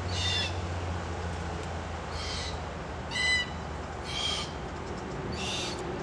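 Red-tailed black cockatoos calling to each other: five short calls of about half a second each, one at the start, then after a pause about one a second.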